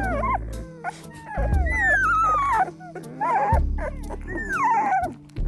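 Two-week-old Belgian Malinois puppies whimpering and squeaking as they fall asleep: several high whines that slide downward in pitch, one longer one about two seconds in. Blues music with a low bass line plays underneath.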